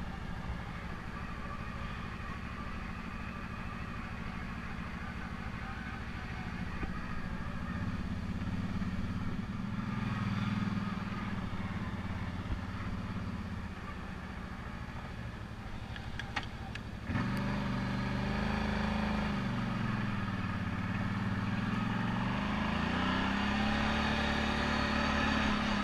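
ATV engine running as the quad is ridden along a dirt trail, its pitch rising and falling with the throttle. About two thirds of the way through it suddenly gets louder.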